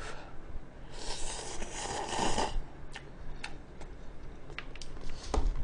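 A long slurp of cup instant noodles about a second in, then chewing broken by a few short, sharp clicks.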